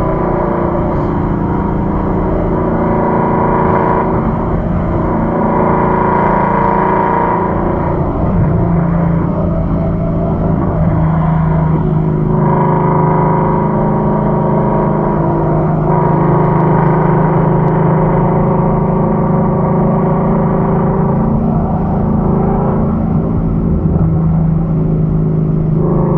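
2015 Ford Mustang GT's 5.0-litre V8 running steadily at cruising speed, about 50 to 60 mph, with tyre and road rumble, heard from inside the cabin.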